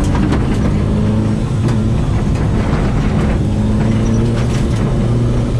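Mazda 323 GTR rally car's turbocharged four-cylinder engine pulling steadily on gravel, heard from inside the stripped cabin, its pitch rising a little in the second half. Gravel and stones knock against the underbody now and then.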